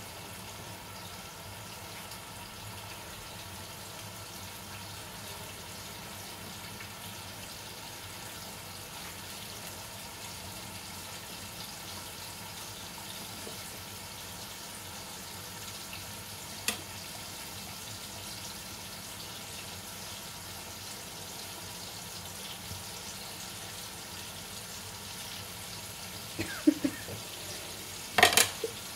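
Faint steady hiss throughout. A single sharp knock comes about two-thirds of the way in, and near the end a few sharp knocks of a kitchen knife against a ceramic plate as tomatoes are cut.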